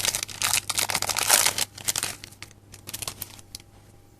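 Foil booster-pack wrapper crinkling and being torn open, dense crackling for about the first two seconds. After that it thins to fainter, scattered crackles and taps as the wrapper and cards are handled.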